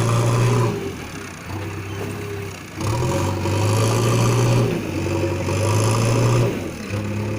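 Diesel engine of a JCB backhoe loader working, its revs rising and falling under load about three times.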